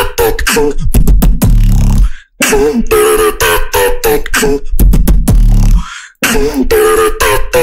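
Solo beatboxing into a microphone: a held hummed tone runs over rapid percussive clicks and hits, with stretches of deep bass. It comes in phrases of about four seconds, each ending in a brief gap.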